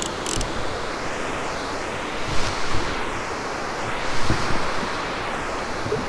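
A steady rushing noise with a slow swishing sweep to it, broken by a few soft knocks.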